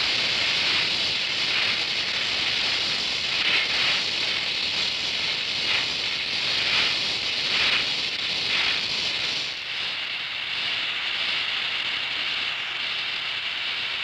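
Oxy-acetylene welding torch flame hissing steadily as it melts thick plate and filler rod into the weld puddle, with small swells in the hiss; it eases a little about two-thirds of the way through.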